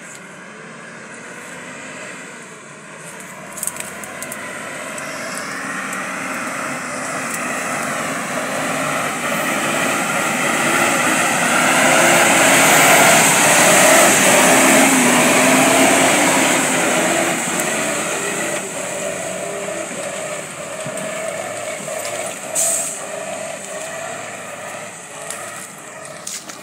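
Cargo truck driving slowly along a muddy track: its engine grows steadily louder as it approaches, is loudest as it passes about halfway through, then fades as it pulls away.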